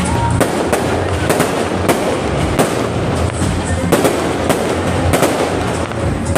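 Fireworks going off: irregular sharp bangs, about two a second, over continuous crackling.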